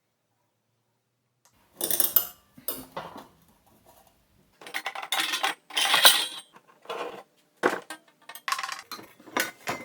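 Steel bar stock clinking and clanking as it is handled, in irregular clusters of sharp metallic knocks with brief ringing, starting about two seconds in.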